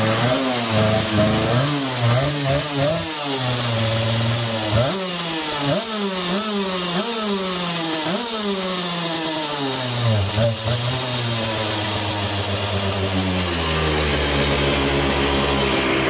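Pavesi two-stroke go-kart engine, freshly started, being revved: its pitch climbs and drops back again and again, then it settles into a steadier run over the last few seconds.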